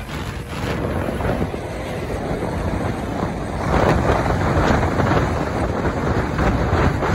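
Road and wind noise from a moving vehicle at speed, with wind buffeting the microphone; it grows louder about halfway through.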